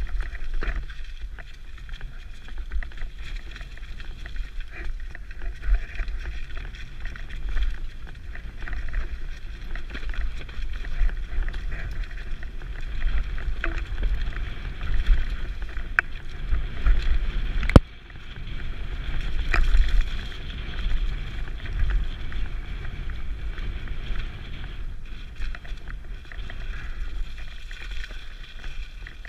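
Mountain bike ridden down a snowy trail, heard from a helmet camera: wind rumble on the microphone with the tyres and bike rattling over the bumps, and one sharp knock about two-thirds of the way through.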